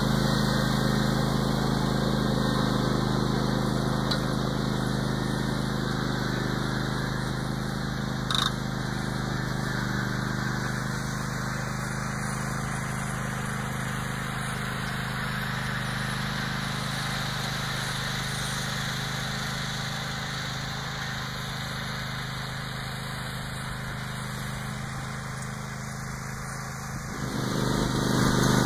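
Garden tractor engine running steadily while pulling a disc harrow through tilled garden soil. It fades as the tractor moves away and grows louder again near the end as it comes back close. A single brief click about eight seconds in.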